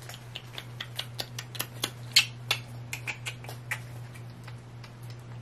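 Light, irregular clicks and ticks of fingernails picking at a small paper sticker and its backing, several a second, thinning out after about four seconds.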